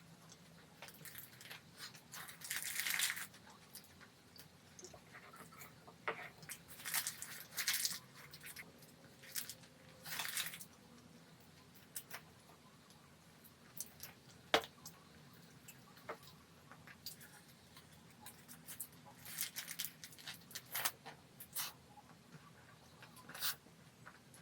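Eating and handling food: scattered clicks and short rustling, crunching bursts, the longest about three seconds in, with one sharp click a little past the middle as the loudest sound.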